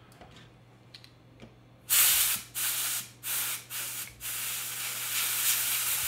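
Aerosol spray can sprayed into the opened mouse's faulty left-button micro switch to clean it: four short blasts starting about two seconds in, then one long continuous blast.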